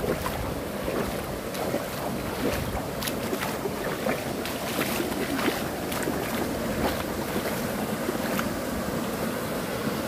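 Shallow stream water rushing and splashing, with many small irregular splashes over the steady pour of a small cascade, as someone wades through the water.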